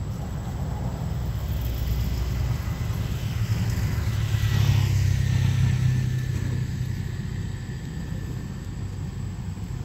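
Low engine rumble that swells to its loudest about halfway through and then eases off, with a faint whine falling slightly in pitch: a vehicle passing by.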